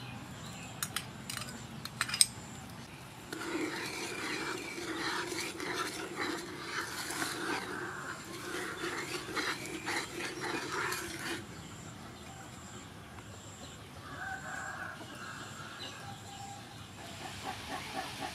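Chickens calling for several seconds from about three seconds in, with a shorter run of calls later. At the start a metal spoon clinks a few times against a bowl, and near the end the sugar water in the frying pan bubbles at the boil with a soft hiss.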